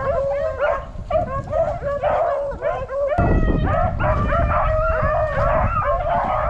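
A pack of beagles baying and howling in a steady chorus of many overlapping calls: hounds in full cry on a rabbit's scent.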